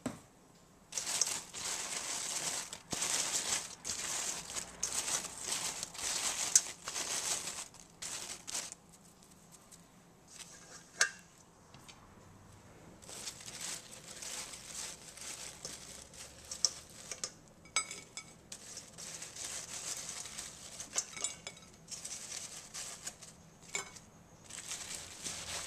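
Brown paper rustling and crinkling in repeated bursts as fried crinkle-cut fries are handled in a paper-lined bowl, with a few light clicks of a plate and fries being set down.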